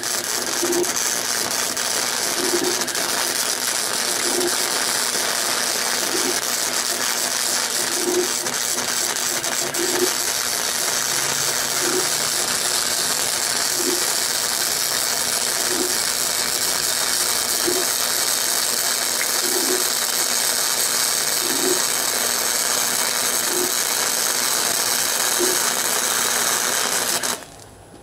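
Flux-core wire welder (Chicago Electric 90 amp) arc running steadily as a weld bead is laid, a continuous dense hiss and crackle that cuts off suddenly near the end when the trigger is released.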